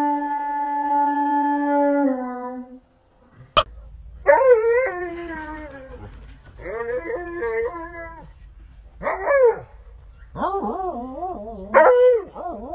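A husky howling and yowling in several short phrases whose pitch wavers up and down. Before that, a steady held tone slides down and stops about two seconds in, followed by a sharp click.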